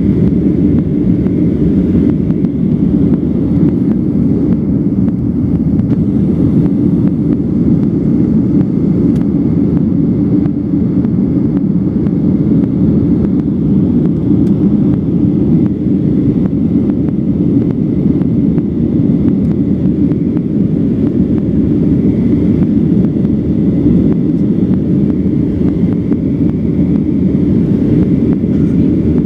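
Steady cabin noise of a Boeing 737-900 with its CFM56-7B turbofan engines running, a dense even rumble with a faint steady whine above it, heard from inside the passenger cabin.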